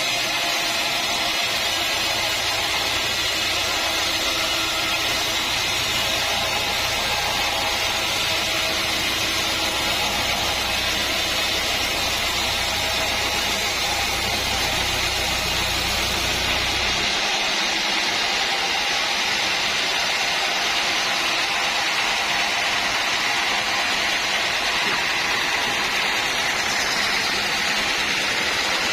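Sawmill machinery running steadily, a loud even whirring noise; a low hum beneath it stops about two-thirds of the way through.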